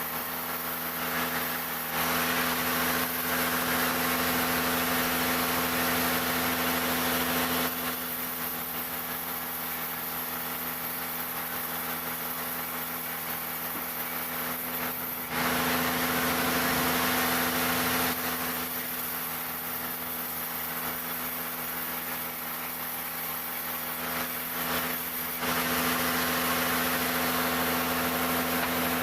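Engine-driven sawmill running steadily, with three louder stretches of added harsh noise as the saw cuts through jackfruit timber.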